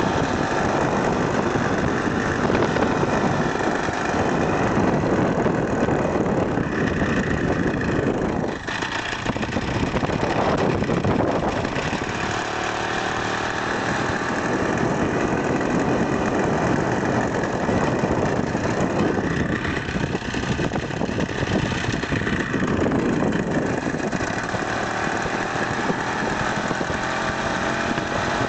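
Two-stroke single-cylinder Ural chainsaw engine driving a motorized wheelchair, running under way with the throttle rising and falling. The engine note drops off briefly about eight seconds in, picks up again, and climbs near the end.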